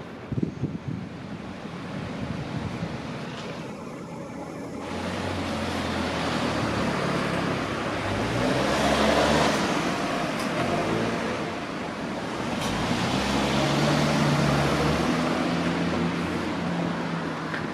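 Road traffic: car engines and tyres passing, the engine hum shifting in pitch, swelling as vehicles go by about halfway through and again near three-quarters through.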